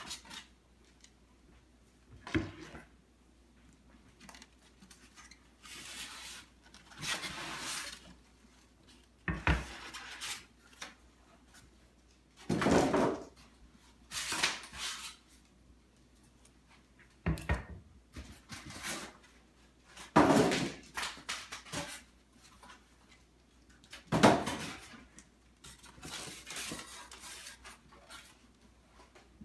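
Packaging being pulled off and handled while a new dishwasher is unboxed: irregular rustling and scraping in bursts, with several sharp knocks and short quiet gaps between them.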